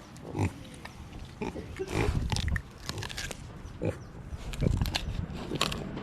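Pigs grunting in short, irregular bursts while being hand-fed vegetables.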